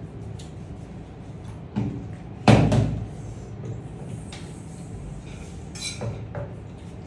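A plastic bottle tossed in a bottle flip lands on a hard surface: a small knock, then a loud thump about two and a half seconds in.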